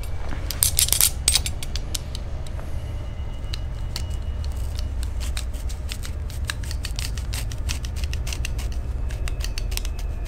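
Scissors cutting into a toy's head: a run of small snips, clicks and creaks, a few louder ones about a second in, coming thicker in the second half.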